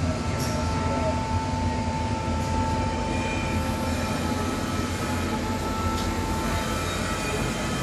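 Steady machine hum with a thin, unchanging whine on top.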